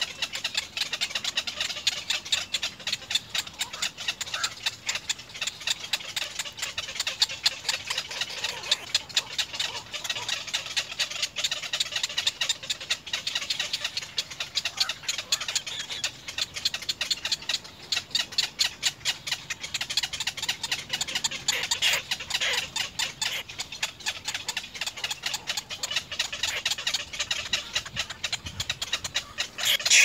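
Little egret nestlings giving a continuous rapid ticking, rattling chatter.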